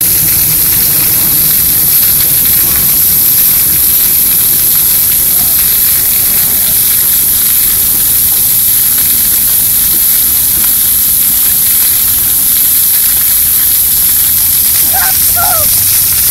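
Steady hiss of splash-pad water jets spraying and spattering onto wet concrete. A child's voice is heard briefly near the end.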